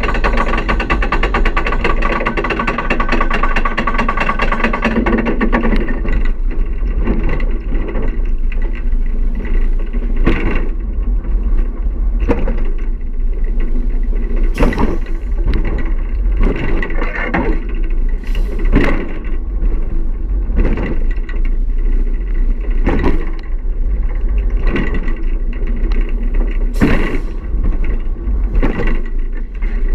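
Roller coaster train running along its track, with a steady mechanical hum over the first few seconds and then rumbling with repeated sharp knocks and rattles every second or two.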